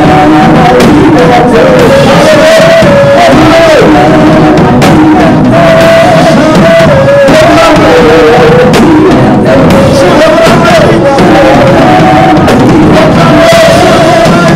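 Live church worship song: a group of worship singers singing together into microphones, holding and sliding between long notes.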